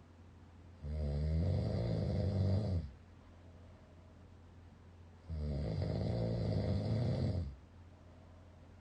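A person snoring loud: two long snores of about two seconds each, some four and a half seconds apart.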